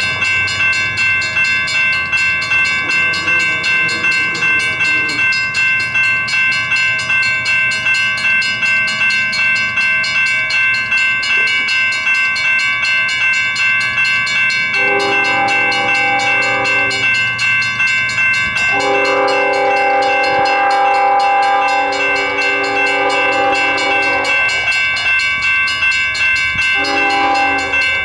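A railroad grade-crossing bell rings steadily, about two strokes a second. About halfway in, the multi-chime air horn of an approaching Union Pacific GE freight locomotive sounds the grade-crossing signal: two long blasts, one short, and the final long blast beginning at the end.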